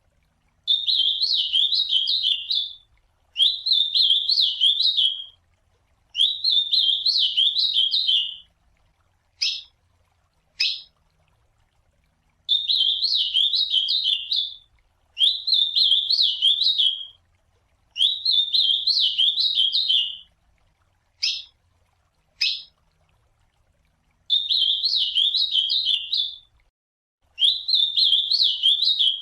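Ultramarine grosbeak (azulão) singing its classic song: eight rich, warbling phrases of about two seconds each, repeated with short pauses, with brief sharp single call notes between some of them.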